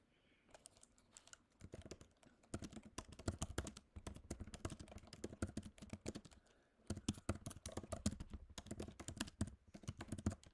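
Typing on a computer keyboard: a fast, faint run of key clicks broken by a few short pauses while a line of text is entered.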